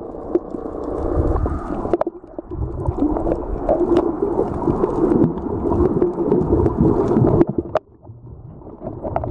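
Muffled underwater sound picked up by a camera held below the surface: a rumbling wash of moving water and bubbles with scattered sharp clicks, turning quieter near the end.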